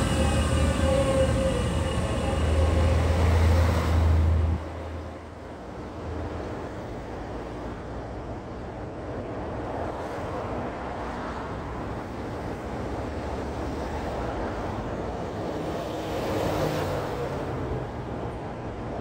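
Road traffic noise from a heavy vehicle. Its loud low engine rumble and a few falling tones fill the first four and a half seconds and then cut off suddenly. Steady traffic noise follows.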